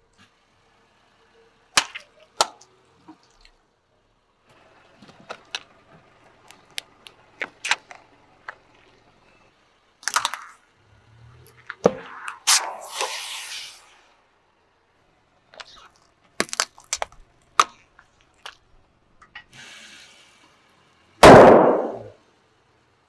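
A car tyre rolling over and crushing small objects one after another: sharp cracks and snaps, stretches of faint crackling, a rushing hiss about halfway through, and a loud burst about a second and a half before the end.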